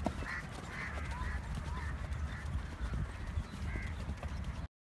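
A steady low wind rumble on the microphone, with short bird calls repeating every half second or so; the sound cuts off abruptly near the end.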